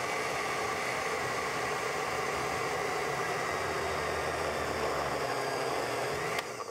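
Countertop blender motor running steadily while it purées pesto of basil leaves, nuts, garlic and olive oil. It is switched off near the end.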